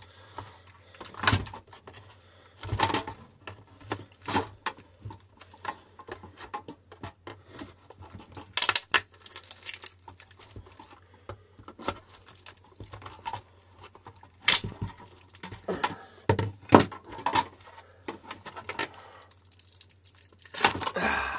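Plastic e-bike battery case being pried apart: irregular clicks, knocks and scrapes of a plastic pry tool and a screwdriver against the case and the glued-in cell pack. Near the end, a denser peeling, tearing noise as the cell pack is pulled free of the silicone glue.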